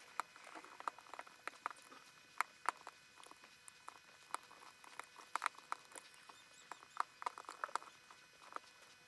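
Lock picks and a tension tool working the pins of an Izis pump lock, making faint, irregular metal clicks and light scraping.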